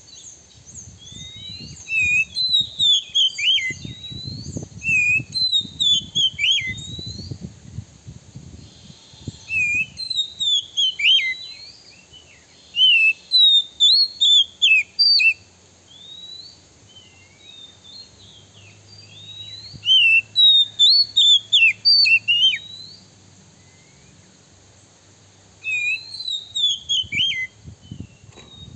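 Oriental magpie-robin singing: loud, varied whistled phrases of quickly rising and falling notes, in bursts of a few seconds with short pauses between.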